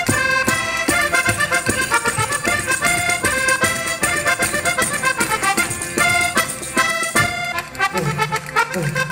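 Live folk band playing a saltarello, a fast traditional dance tune led by accordion, with a quick run of notes over a steady beat.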